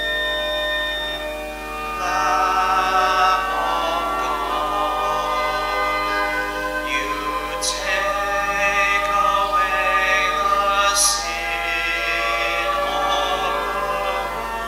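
Slow sacred singing: voices holding long notes with vibrato, entering about two seconds in over steady organ-like chords, with a couple of brief sibilant hisses in the words.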